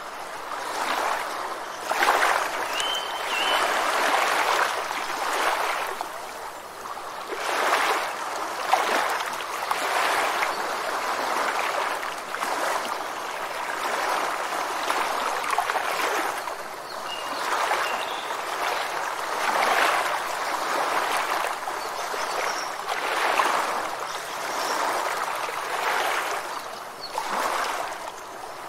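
Rushing, splashing water that swells and eases every couple of seconds, with a couple of faint bird chirps.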